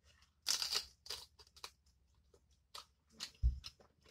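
Biting and chewing into cold boiled blue crab: a crisp crunch of shell about half a second in, then a run of smaller crunches and clicks, and a dull low thump near the end.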